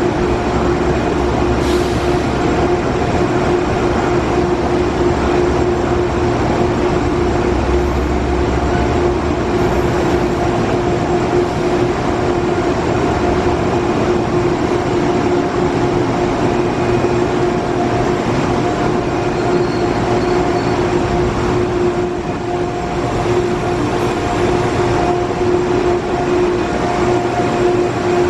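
Amtrak Amfleet passenger coaches rolling slowly past an underground platform: a steady, loud rumble of the moving train with a constant droning hum under it, the low rumble heavier in the first third.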